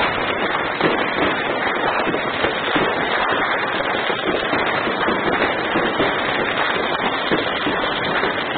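Many fireworks and firecrackers going off at once: a dense, unbroken crackle of overlapping bangs and pops with no pause.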